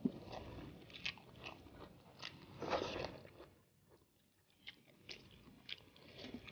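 Two people eating rice and fried fish by hand: faint chewing and scattered soft clicks and smacks of mouths and fingers, with about a second of near silence just past the middle.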